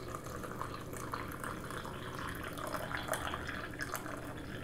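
Hot cascara (coffee-cherry tea) pouring in a thin, steady stream from a stainless steel French press into a ceramic mug, a soft continuous trickle and splash of liquid.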